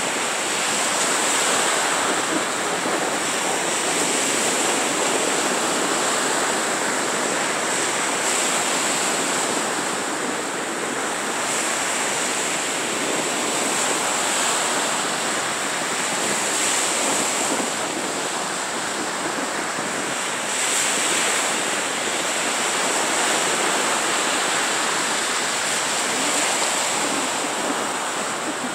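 Small surf breaking and washing up a sandy beach: a steady rushing hiss that swells and eases every few seconds as each wave comes in.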